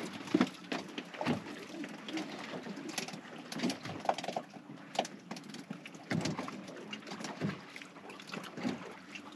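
Small waves lapping and slapping against a boat's hull, with irregular light knocks and splashes.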